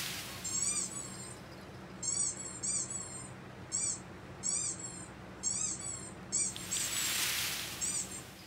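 Very high-pitched animal chirps, in about ten short squeaky groups of quick down-and-up notes. Two breathy rushes of noise, one at the start and one near the end.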